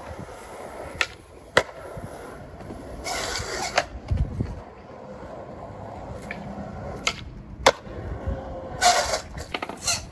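Skateboard wheels rolling on a concrete skatepark floor, with two ollies: each is a sharp clack of the tail popping, then a second clack of the board landing about half a second later. Two short louder rushes of noise come between them.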